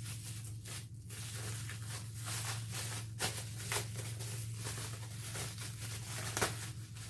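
Paper envelope and plastic packaging being torn and crumpled open by hand: continuous rustling with a few sharp crinkles, over a steady low hum.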